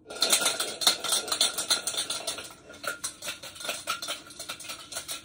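Four hard-boiled eggs rattling and knocking against the sides of a drained stainless steel saucepan as it is shaken hard by hand, a rapid clattering that cracks the shells so they will peel off easily.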